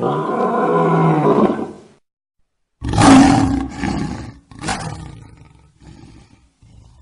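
Lion roaring: one long roar of nearly two seconds, then after a short gap a louder roar with a second burst, fading into quieter, shorter calls.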